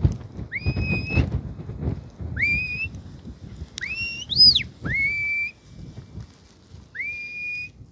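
A sheepdog handler's whistled commands: about five short blasts, each sliding up and then holding a steady note, one near the middle swooping higher and falling away, over a low rumble of wind on the microphone.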